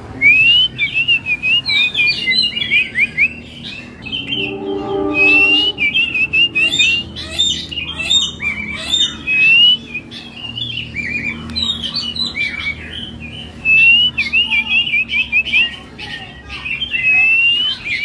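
Oriental magpie-robin (kacer) in full song, a long, varied run of clear whistled phrases and rapid chirps.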